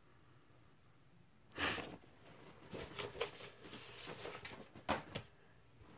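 Paper and cardboard rustling as an LP's printed inner sleeve and album jacket are handled. A sharp swish comes about a second and a half in, followed by a run of softer rustles and scrapes.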